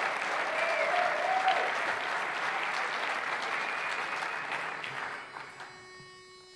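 Audience applauding with a few cheering voices. The applause dies away about five seconds in, leaving a faint steady hum.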